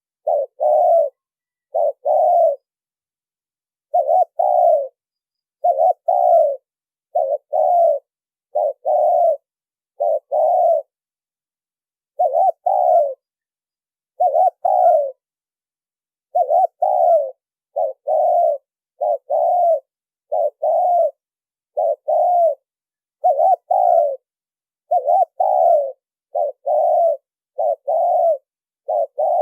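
Spotted dove cooing: a steady string of short, clean coos about one a second, with a few brief pauses and no background sound between them. It is a male's call played as a decoy to lure wild doves.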